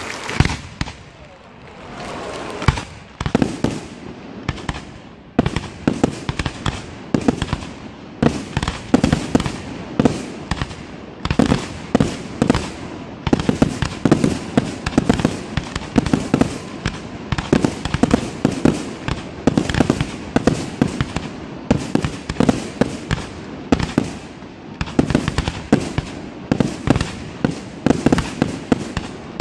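Aerial firework shells bursting in a rapid barrage: a few sharp bangs in the first seconds, then from about five seconds in several bangs a second with no let-up.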